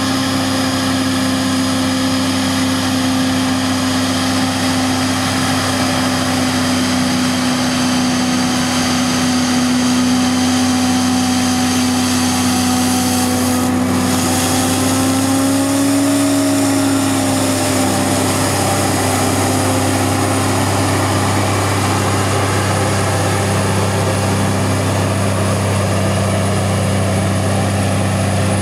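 John Deere 8800i self-propelled forage harvester running steadily under load while chopping rye: a loud engine drone with several steady higher tones over it. About halfway through, the pitch rises slightly and falls back.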